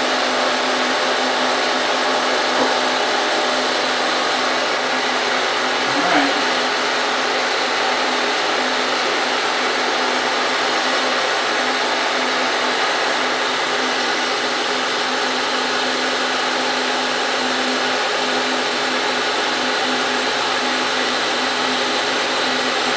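Milling machine spindle running steadily through a Volstro rotary milling head, its end mill taking a 50-thousandths cut in aluminium: a steady motor hum over an even hiss. One small brief knock about six seconds in.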